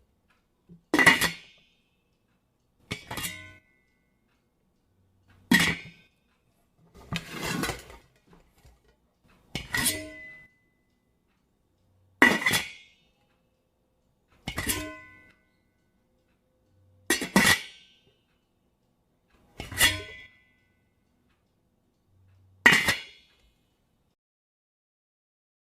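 Hard objects clinking against each other ten times, each a sharp strike that rings briefly, about every two and a half seconds with silence between.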